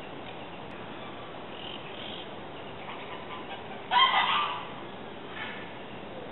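A bird's single loud honking call about four seconds in, lasting about half a second, over steady background hiss with faint higher chirps.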